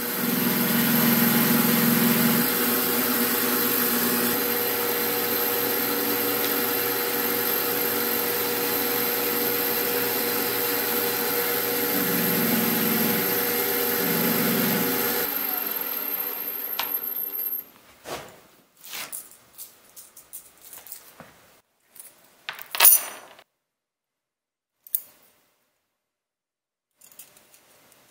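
Small benchtop metal lathe running with an abrasive disc in its chuck, a small metal part held against the spinning disc, growing harsher near the start and again twice near the middle. The motor switches off about halfway through, leaving a high whine that fades as the spindle coasts down. After that come scattered small metallic clicks and taps as small parts are handled, with one sharp click.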